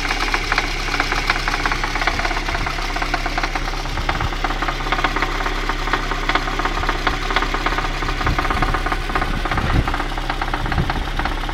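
VAZ-2111 (Lada 111) petrol engine running, probably near idle, with a fast, steady knocking that keeps time with the engine: the engine knock that is the fault being recorded.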